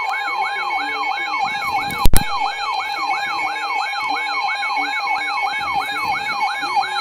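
An electronic siren sounding in fast, repeating downward sweeps, about three a second, over a steady two-tone alarm like the Emergency Alert System attention signal. A single loud thump cuts in about two seconds in.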